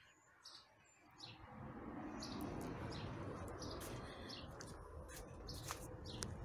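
Small birds chirping in short, scattered high calls. From about a second and a half in, a steady low rushing noise rises beneath them and holds.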